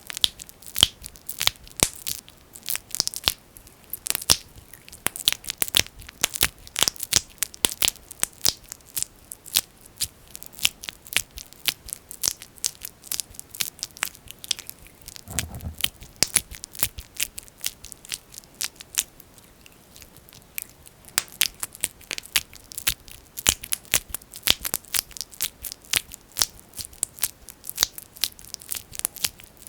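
Fingers squishing and rubbing thick Vaseline petroleum jelly close to the microphone, making a dense run of sharp sticky clicks and pops, many each second. It thins out for a few seconds just past the middle, and there is one soft low thump about halfway.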